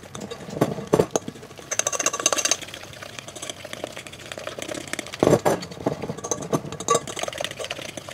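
Metal fork clinking and scraping against a glass mixing bowl while stirring flour, eggs and milk into a thick batter, in irregular clicks with a few louder knocks.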